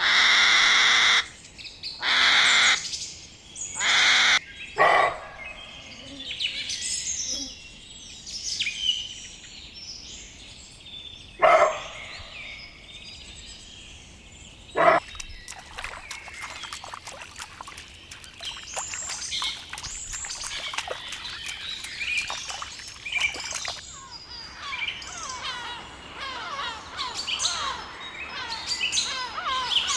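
Birds calling: a few loud, harsh calls in the first five seconds, then many quick chirps overlapping from about halfway through.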